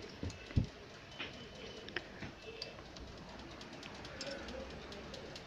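Dull knocks of hands handling a cutting tool in the tool post of a Traub A32 automatic lathe, the loudest about half a second in, followed by a few light metal clicks.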